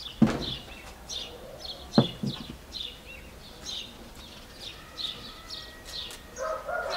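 A small bird chirping in a steady run of short, high chirps, two or three a second. Two sharp knocks come about a second and three quarters apart, and a short pitched call starts near the end.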